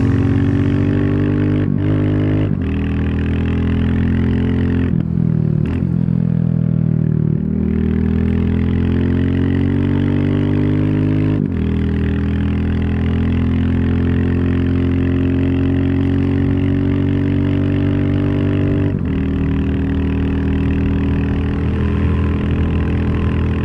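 Royal Enfield Classic 350's single-cylinder engine running under load on the move. Its pitch climbs slowly and drops back several times, about two, five, seven, eleven and nineteen seconds in.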